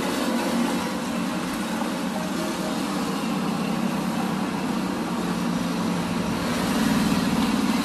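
Steady road traffic from cars and motorcycles driving past on the bridge roadway, swelling a little near the end.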